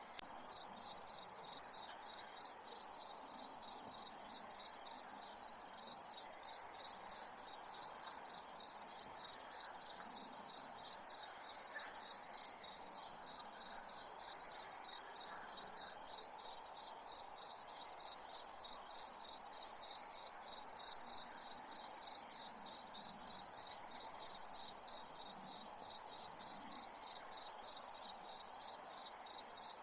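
Crickets chirping steadily, a high pulsing trill of quick, even chirps at about three a second.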